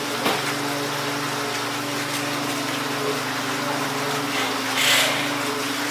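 Twisted doughnuts frying in a large pan of hot oil, a steady sizzle over a constant machine hum. A brief click comes just after the start, and the hiss swells briefly about five seconds in.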